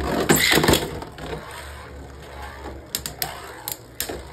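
Beyblade spinning tops battling in a plastic stadium: a loud rattling clatter in the first second, then a quieter whirr with several sharp clacks as the tops hit each other.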